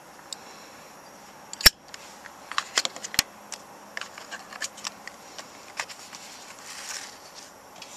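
Metal Zippo lighters being handled: a run of small clicks and clinks, with two sharper snaps about one and a half and three seconds in.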